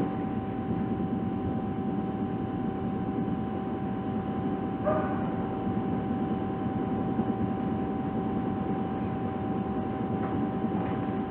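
Steady background hum and hiss picked up by the recording microphone, with one steady thin tone through it and a brief faint sound about five seconds in.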